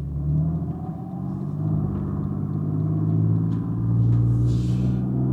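Mercedes-Benz 350 SDL's 3.5-litre turbo-diesel straight-six running at low road speed, heard from inside the cabin as a steady low drone whose pitch shifts a little as the car is slowed and manoeuvred.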